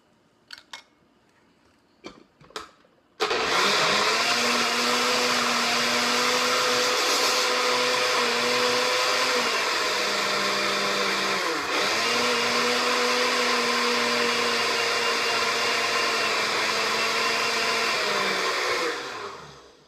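Countertop blender switched on about three seconds in, running steadily through a thick banana and Greek yogurt smoothie; its motor pitch sags briefly about halfway and recovers, and it winds down just before the end. Before it starts, a few light clicks.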